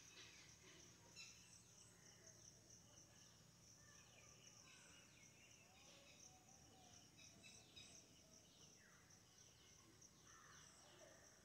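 Faint outdoor nature ambience: a steady high-pitched drone of insects with many short, downward-sweeping bird calls over it.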